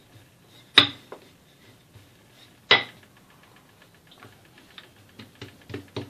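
A wooden rolling pin rolling out dough on a countertop, with two sharp knocks about two seconds apart. These are followed by a run of light taps and soft rustles as the thin dough sheet is handled and patted flat.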